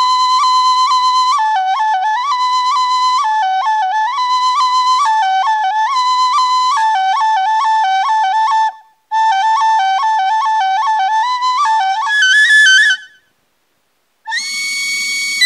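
Music: a solo melody played on a single high-pitched instrument. It pauses briefly about nine seconds in and falls silent for about a second near the end before a new held note begins.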